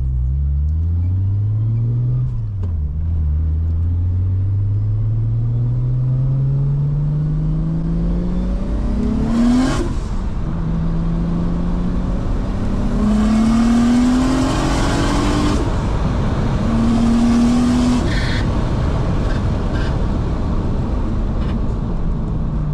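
Porsche 911 Turbo's flat-six engine accelerating hard through the gears. The pitch climbs in a long pull for about ten seconds, then a sharp burst at an upshift. Shorter rising pulls follow, cut by two more shifts, before it settles to a steady cruise near the end.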